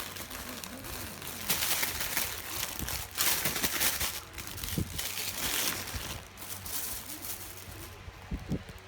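Rustling and crinkling in several bursts of about a second each, over a low steady hum.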